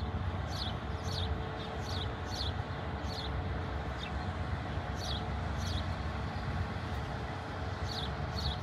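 Low steady rumble of a large container ship passing, with short, high chirps that fall in pitch repeating about once or twice a second.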